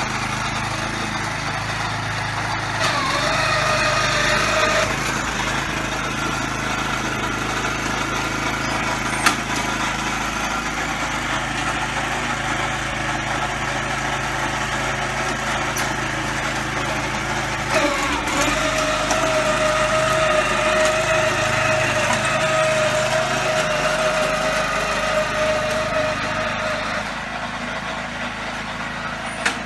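Small petrol engine of a walk-behind lawn corer running steadily as it works across the turf pulling plugs. Twice the engine note picks up to a higher whine, briefly a few seconds in and then for about eight seconds in the second half, with a few sharp knocks.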